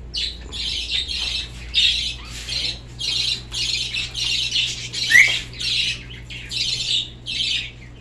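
A flock of caged birds squawking and chirping in dense, closely repeated bursts, with one short rising whistle about five seconds in, over a steady low hum.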